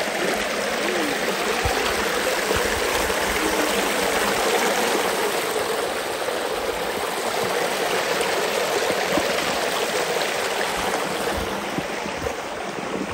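Small stream running and trickling over rock ledges in little cascades: a steady rush of water.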